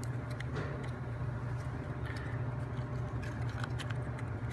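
Light clicks and taps of wooden model-kit parts being handled and pushed together, over a steady low hum.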